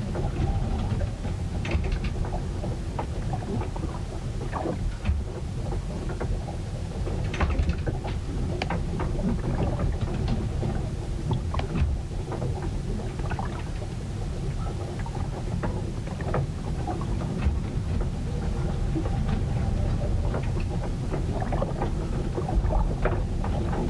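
A storm heard aboard a wooden ship: a heavy, continuous low rumble of wind and water, with faint steady tones and many scattered knocks and clicks from the boat throughout.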